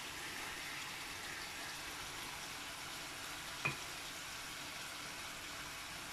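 Raw chicken pieces frying in a curry masala base in a stainless steel pot, a steady sizzling hiss, with one sharp knock about three and a half seconds in.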